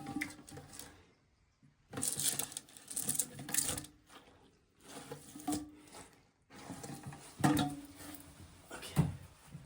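A towel rubbed and pushed around inside a drained porcelain toilet tank to soak up the last water, in irregular stretches of rubbing and handling noise with a few sharp knocks, the loudest about nine seconds in.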